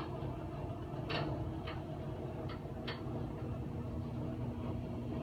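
Steady low room hum with a handful of soft, short clicks and taps in the first three seconds.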